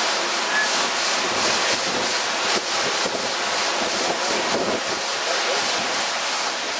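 Hurricane-force wind gusting with rain, the wind buffeting the camcorder microphone in a loud, rushing noise that rises and falls with the gusts.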